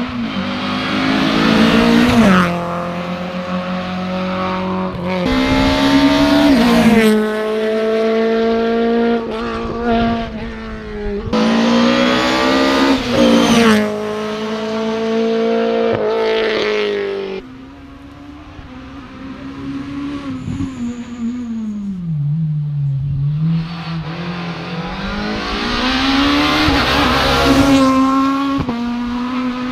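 Rally cars on a tarmac stage at full throttle, one pass after another, each engine revving up hard and dropping at each gear change. In the middle one car comes through quieter, its engine note dipping low before climbing again.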